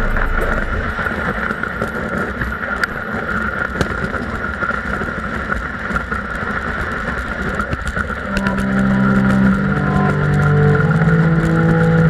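Sled runners hissing and scraping over packed snow at speed, with occasional sharp knocks from bumps in the track. Background music with sustained chords comes in about eight seconds in.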